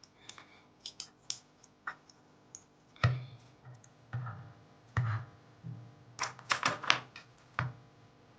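Plastic armor parts of an MGEX Strike Freedom model kit being handled and snapped onto a TLX alloy inner frame: a string of irregular plastic clicks and knocks, some with a dull thud, coming thick and sharp about six to seven seconds in.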